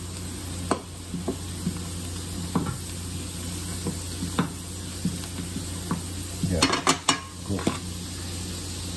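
Onions and herbs sizzling steadily in a frying pan, with a spatula stirring and tapping against the pan in scattered clicks and a quicker run of clatters about two-thirds of the way through.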